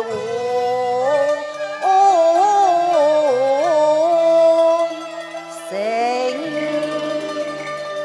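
Live Cantonese opera music: a long, ornamented, wavering melody over traditional Chinese instrumental accompaniment. A new instrumental phrase enters about six seconds in.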